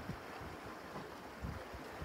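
Small waves washing against rocks at the shoreline, a steady hiss of water, with wind buffeting the microphone in low rumbles, strongest at the start and about one and a half seconds in.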